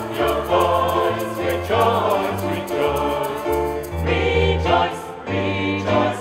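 Gospel choir singing a song in phrases.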